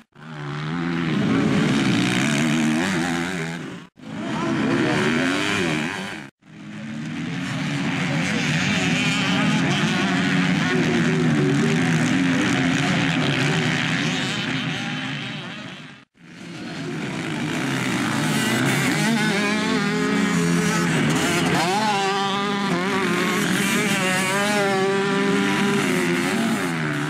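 Motocross dirt-bike engines revving hard through the corners and accelerating away, the pitch climbing and dropping with throttle and gear changes. The sound drops out briefly about 4, 6 and 16 seconds in.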